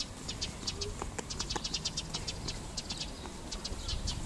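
Small birds chirping: many short, high chirps in quick, irregular succession.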